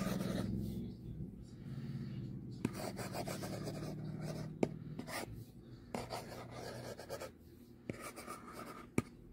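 Apple Pencil's replacement fine-point tip scratching across an iPad's glass screen in quick cursive strokes, with a few sharp clicks where the tip taps down on the glass.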